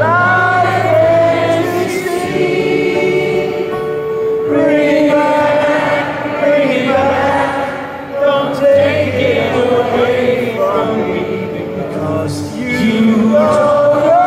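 Live arena concert music: a solo acoustic guitar amplified through the PA, accompanying slow, sustained singing, with many audience voices singing along.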